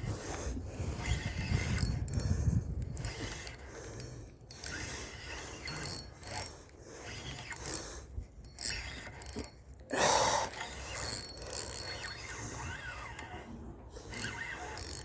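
Fishing reel being cranked to wind in a hooked wallago catfish, its gears running in uneven spells with short pauses. A louder noisy burst comes about ten seconds in.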